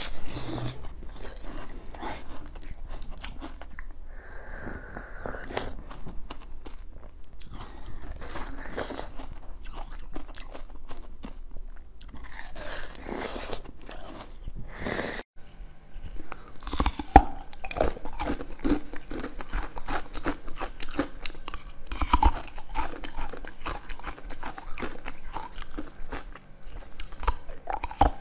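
Jelly sweets being bitten and chewed, with irregular wet clicks and snaps of the bites. The sound breaks off about halfway and a second round of biting and chewing follows.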